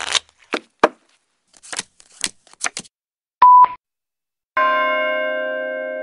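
A string of irregular clicks and short hissy bursts, then a short beep. About four and a half seconds in, a held keyboard-like chord starts and slowly fades.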